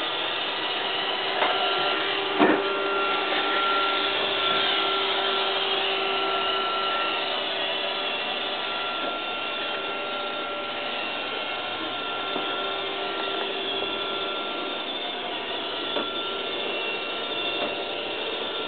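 Robot vacuum cleaner running with a steady whir and a faint hum, with a couple of sharp knocks about two seconds in.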